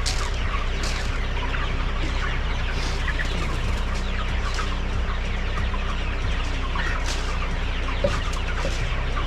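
A large flock of chickens clucking and peeping all at once, many short overlapping calls with no break.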